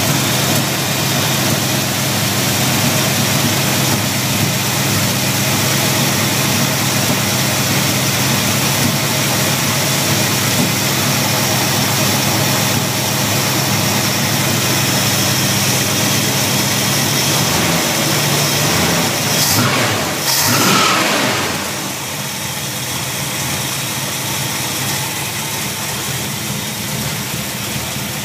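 1975 Plymouth Valiant's engine, fitted with a new Edelbrock carburetor, idling steadily under the open hood. About two-thirds of the way through it revs up briefly with a rushing burst, then settles back to a slightly quieter idle.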